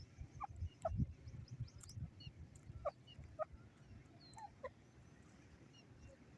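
Grey francolin giving short, soft call notes, mostly in pairs, well spaced, with faint high chirps.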